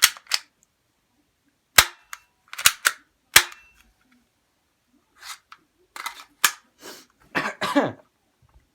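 Airsoft pistol being fired: a string of sharp snaps, the loudest few in the first half, followed by several softer clicks and rattles.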